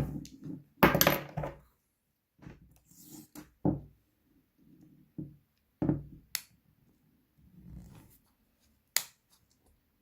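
Clicks, knocks and scrapes of a mobile phone being pried apart by hand during a repair. There is a longer rasping scrape about a second in, then separate sharp clicks about four, six and nine seconds in.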